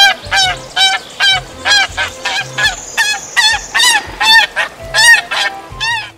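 Swan honking: a quick run of short, loud, nasal calls, about three a second, that stops just before six seconds in.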